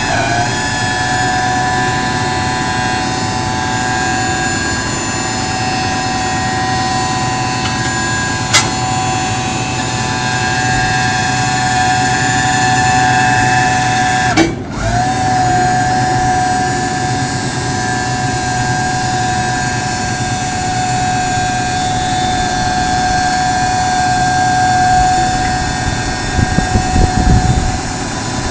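Forklift engine running with a steady hydraulic whine as the Cascade clamp attachment is rotated. A sharp click comes about a third of the way in; about halfway through the whine dips, breaks off briefly and glides back up.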